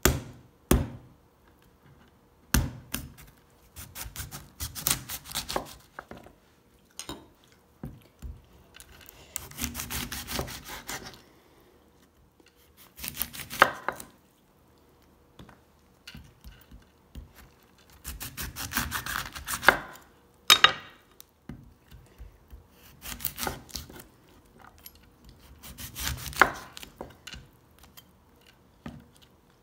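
A chef's knife cutting through pomegranate rind on a wooden cutting board. It comes in short bouts of cutting and scraping a few seconds apart, with a few sharp knocks of the blade on the board.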